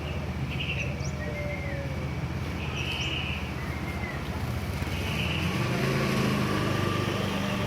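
Sooty-headed bulbul giving short, bright calls about every two to three seconds, over the steady low drone of a running engine that grows louder about five seconds in.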